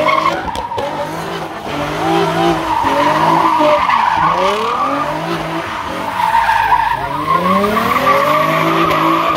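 Nissan 350Z doing burnout donuts: its V6 engine revs up and down again and again while the spinning rear tyres squeal on the pavement.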